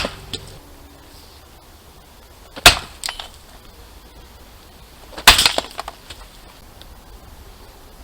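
Sledgehammer striking a cheap brass padlock resting on a metal cube used as an anvil. There are two heavy blows about two and a half seconds apart, each followed by a brief clatter.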